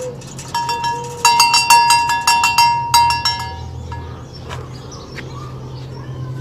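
A small metal bell rung rapidly and repeatedly for about three seconds, a fast clanging with clear ringing tones, loudest in the middle and stopping suddenly. Doves coo softly at the start.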